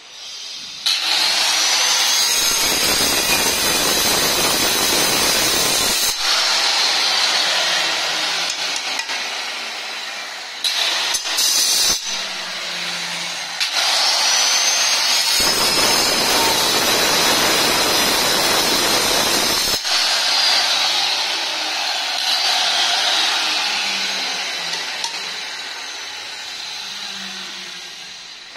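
Handheld electric marble cutter cutting a black granite strip in two cuts. Each cut opens with a rising whine as the motor spins up, then gives four to five seconds of heavy grinding as the blade bites the stone, and the sound slowly dies away afterwards. A short burst of the motor comes between the two cuts.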